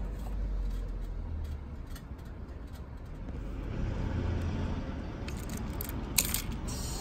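Steady low rumble of background noise, with one sharp click a little after six seconds in.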